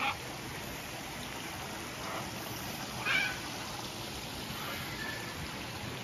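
Short squawking calls from parrots: one at the start, a faint one about two seconds in, and a louder one about three seconds in, over a steady background hiss.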